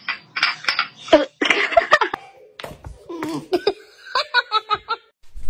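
A person laughing in short, repeated giggling bursts.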